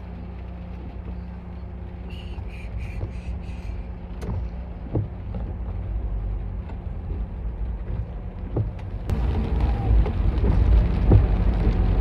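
Daihatsu Hijet Cargo kei van driving, heard from inside the cab: its small three-cylinder engine hums steadily under road noise. The sound grows louder about nine seconds in, with a few light knocks.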